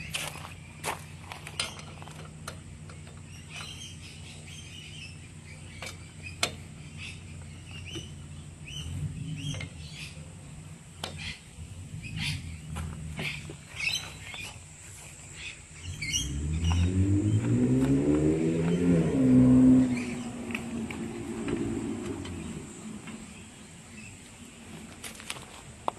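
Birds chirping with scattered light metallic clicks, then about 16 seconds in a car drives past, its engine rising in pitch and loudest around 19 seconds before fading.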